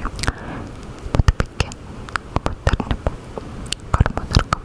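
Close-miked mouth sounds: irregular wet clicks and smacks of lips and tongue.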